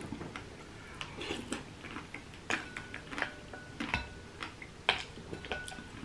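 Irregular light clicks and clinks of a spoon against ice cubes and the bowl while scooping berries and coconut water, some with a brief ring.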